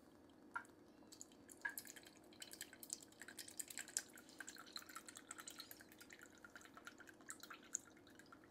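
Kikkoman soy sauce trickling from the bottle into a measuring cup: a few single drops, then a faint, quick run of drips and patter from about a second in, thinning out near the end.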